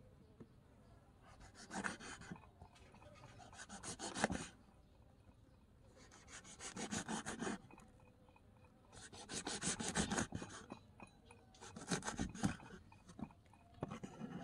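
Miniature knife slicing red chilies into rings on a small wooden cutting board: six runs of quick cuts, each about a second long, with short pauses between.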